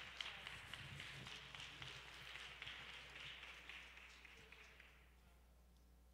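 Faint applause from a small audience, fading out about five seconds in.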